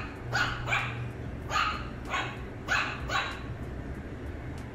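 Shih Tzu puppy giving about seven short, high-pitched yapping barks in quick succession, then falling quiet about three seconds in. It is alarm-barking at a plush toy it is afraid of.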